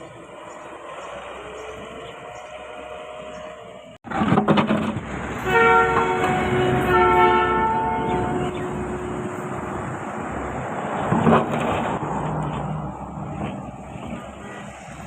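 Heavy machinery running, then after a sudden cut a louder stretch in which a multi-note horn sounds twice in quick succession, each a held chord of several pitches lasting about a second.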